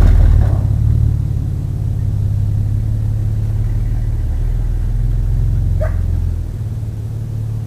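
Chevy 350 small-block V8 in a 1995 S10 pickup idling with a deep, steady low rumble, easing off about half a second in and dropping again near the end. A dog gives one short bark about six seconds in.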